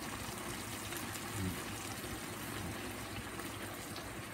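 Sweet-and-sour escabeche sauce simmering around a fried fish in a frying pan: a steady hiss of bubbling, with a slight bump about a second and a half in.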